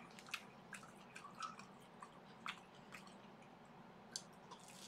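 Faint, close mouth sounds of a person chewing a vegetable kakiage (tempura fritter): scattered soft wet smacks and clicks.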